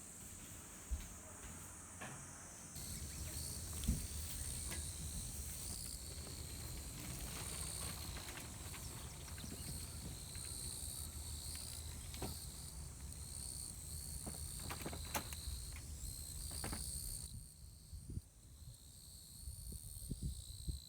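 Insects chirping steadily in a chorus over a low rumble, with a few scattered knocks; the rumble drops away near the end.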